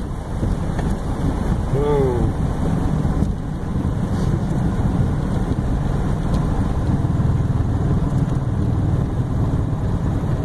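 Piper PA-28-180 Archer's four-cylinder Lycoming O-360 engine and propeller running steadily at landing power, with wind rushing past the airframe, heard from inside the cabin. A brief voice-like sound comes about two seconds in.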